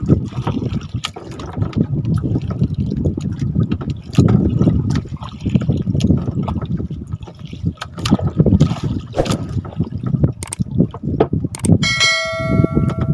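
Water sloshing and splashing around a small fishing boat, with scattered knocks and thumps against it. Near the end a short ringing, bell-like tone sounds for about a second.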